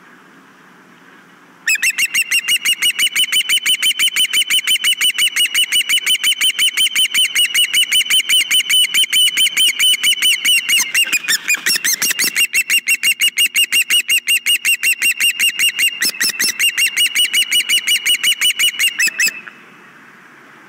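Osprey giving a long run of rapid, repeated high chirping calls, about five a second, for some seventeen seconds. The calls are blurred by a brief scuffle of noise about halfway through.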